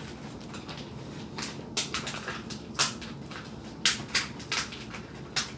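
Irregular crinkling and crackling as a rice-paper roll is handled in the hands, with several sharper snaps scattered through it.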